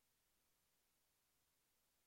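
Near silence: only a faint, steady hiss of the recording's noise floor.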